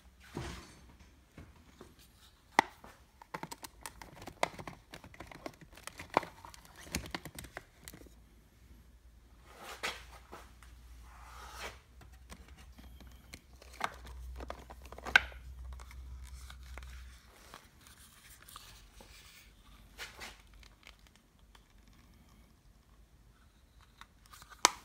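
Foil-covered paperboard eyelash boxes being handled: rustling and crinkling of the card with scattered sharp clicks and taps as boxes are opened, closed and pulled from a stack.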